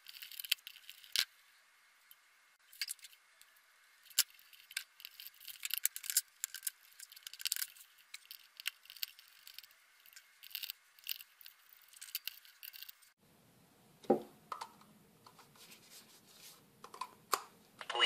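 Scattered light clicks, rustles and small rattles of hands handling a telephone cord and its metal spade-lug terminals while wiring it into an opened rotary-dial phone.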